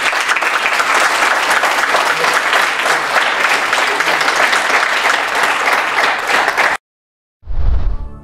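Audience applauding with steady clapping that cuts off abruptly just before seven seconds in. After a brief dead silence comes a short, deep whoosh, the sound effect that opens the closing title.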